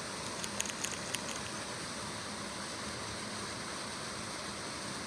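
Steady outdoor background hiss, with a handful of light, sharp ticks between about half a second and a second and a half in.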